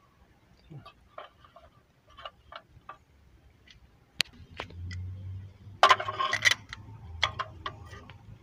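Irregular light clicks and ticks of hand tools and parts being handled on the engine during spark plug work, with a sharp click about four seconds in and a louder clatter of clicks around six seconds.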